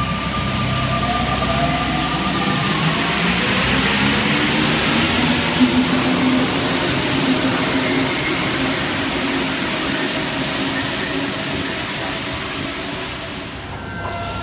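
Paris Metro MP 89 rubber-tyred train pulling out of the station: its motor whine rises in pitch as it accelerates, followed by a loud rush of rolling tyres that slowly fades as the train leaves.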